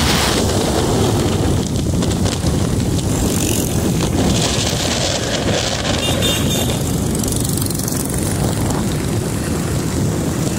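Steady wind rush on the microphone over the engine and road noise of a moving vehicle, with passing street traffic.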